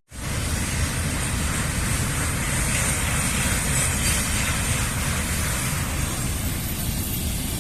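Motorcycle riding at steady speed: the engine's low running under heavy, even wind noise.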